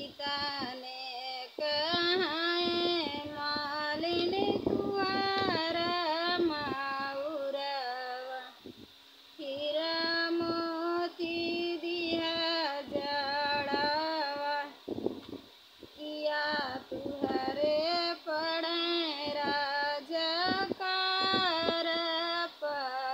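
A woman singing a Hindi-belt folk wedding song (vivah geet) solo, with no accompaniment, in long held and gliding lines with short pauses between phrases.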